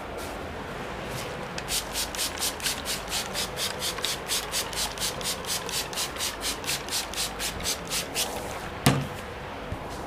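Hand trigger spray bottle squirting onto hair in a quick, even run of short hissing sprays, about four or five a second for several seconds. One sharp knock follows near the end.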